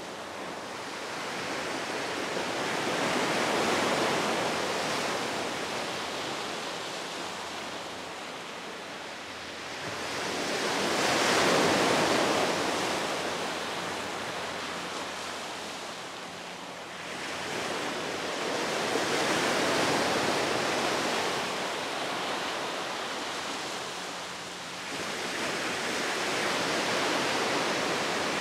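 Sea surf breaking on a pebble beach: a steady wash that swells and falls away in four slow surges, about one every eight seconds, the loudest near the middle.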